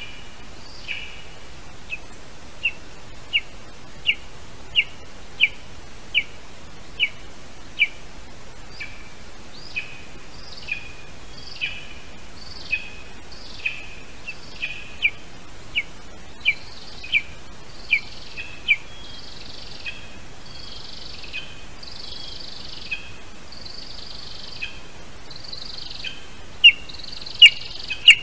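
Lesser spotted eagle chick calling from its nest: a steady series of short, high, piping calls, about one or two a second, with longer, rougher calls mixed in from about the middle. The calls turn much louder near the end, as at close range to the microphone.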